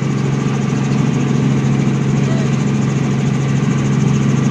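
Helicopter engine and rotor noise heard from inside the cabin: a loud, steady low drone.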